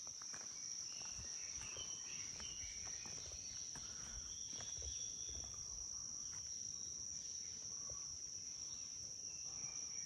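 Insects trilling in a steady high-pitched drone, with scattered short chirps over it.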